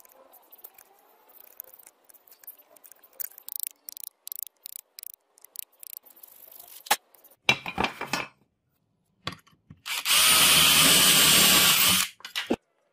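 A wood chisel cuts a groove into a wooden board in short scraping strokes and clicks. Then, about ten seconds in, an electric drill runs steadily for about two seconds, boring through the wood, and stops suddenly.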